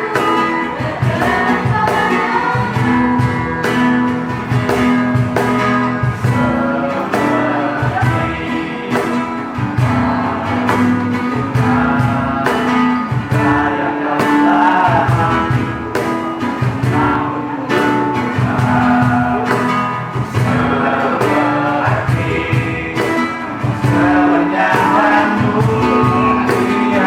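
A choir singing a Christmas praise song with a band accompaniment of bass, guitar and a steady drum beat.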